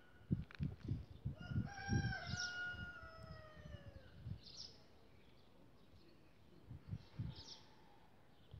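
A rooster crows once, starting about two seconds in: one long call lasting about two seconds and falling slightly in pitch. Over the first two seconds there are several dull knocks, and small birds chirp briefly twice later on.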